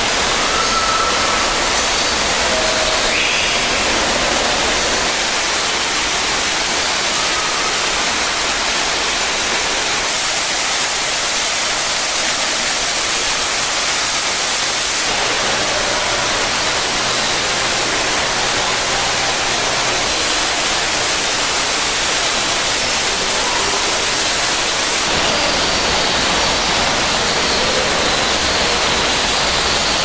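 Steady rushing of falling water from an indoor waterfall, a loud even hiss, with a few faint short bird calls above it.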